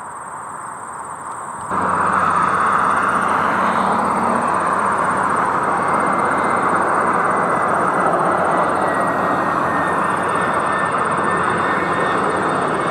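Jet engine noise from an Airbus A320 airliner: a steady loud rush with a faint high whine. It cuts in abruptly about two seconds in, after a quieter stretch of noise.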